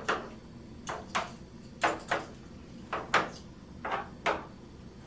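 Quarters being set down one by one on a plastic tabletop: a sharp click roughly every half second, about eight in all.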